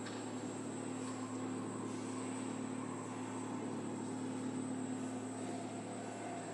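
A steady dark drone with hiss under it. A low hum and a slightly higher held tone run on without change, and a fainter higher tone comes in near the end.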